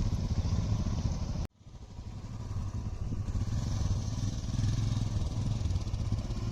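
Royal Enfield Himalayan's single-cylinder engine running as the motorcycle is ridden, a steady low rumble. The sound cuts off abruptly about one and a half seconds in and fades back up.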